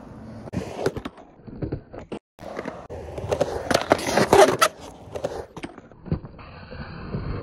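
Skateboard on hard 101A Alva conical urethane wheels rolling and carving on concrete, with the knocks and clacks of the board. There are a few sharp knocks in the first two seconds. Then comes a longer stretch of rolling, loudest about four seconds in as the board carves up the bowl wall.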